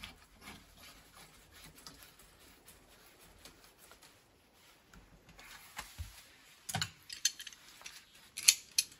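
Quiet handling at a Delta ball-style shower valve as the lock nut is threaded on by hand, with faint scraping of metal parts. A few sharp clicks come a little before two-thirds through, and a louder click comes about a second before the end.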